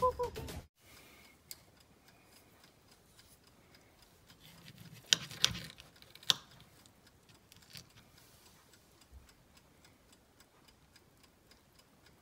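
Metal fork and knife clinking against a plate while cutting a cooked pork chop: a few sharp clinks about five to six seconds in, with faint light ticks between them.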